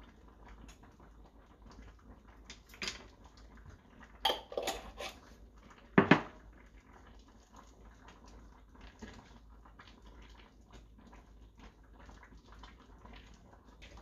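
Cooking utensil clinking and scraping against a stainless steel pot while chili flakes are stirred into simmering tteokbokki sauce. A few sharp clinks, the loudest about six seconds in, over lighter ticking and stirring.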